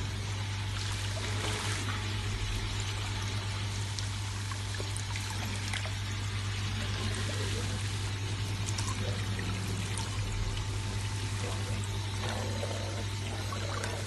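Water carrying finely ground food waste pouring steadily out of a garbage disposal's drain hose into a basin of water, with a steady low hum underneath.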